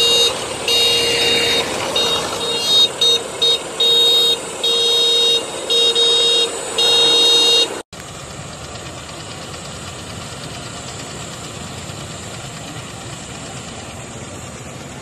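A vehicle horn tooting over and over, a string of short blips and blasts held up to about a second. After a sudden cut about eight seconds in, a tractor engine running steadily.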